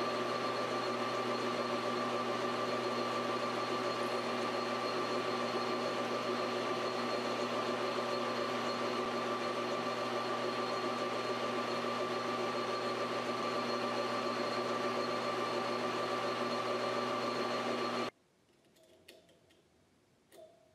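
Metal lathe running while a twist drill bores into a copper rod: a steady motor hum with a high whine. It stops abruptly about 18 seconds in, followed by a few faint clicks.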